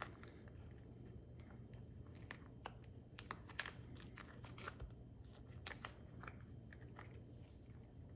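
Faint scattered clicks and rubbing as a small brass bead-lock ring is worked into a soft rubber RC crawler tire, over a low steady hum.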